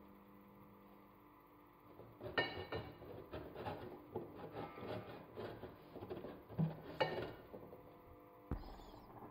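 A block of chortan (dried pressed matsoni) being rubbed up and down on a four-sided metal box grater, a run of uneven scraping strokes that starts about two seconds in. There is a thump near the end.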